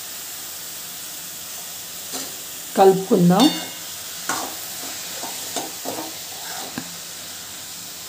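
Brinjal pieces frying in oil in a kadai with a steady sizzle. From about four seconds in, a metal spatula stirs them, with a few sharp scraping knocks against the pan.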